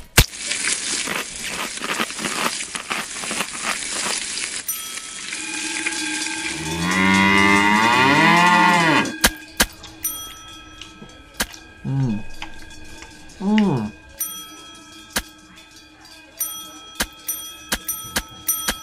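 A cow mooing: one long, wavering moo, then two short moos a few seconds later, with a cowbell clanking and ringing through the second half. A crackling hiss fills the first few seconds.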